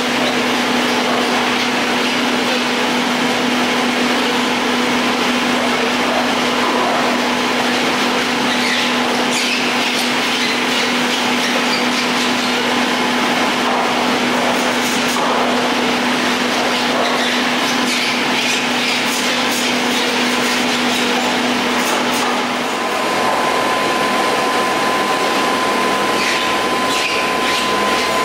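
Detachable chairlift machinery running steadily: a constant mechanical hum with a low steady tone, which about 23 seconds in gives way to a higher steady whine, with light scattered clicks over it.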